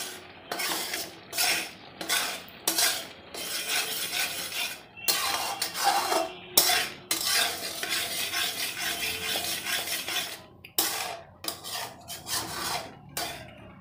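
A metal spatula stirring and scraping a thick, grainy milk mixture around a metal kadai in repeated uneven strokes. The kalakand mixture has cooked down enough to pull away from the sides of the pan, the sign that it is ready to be poured out to set.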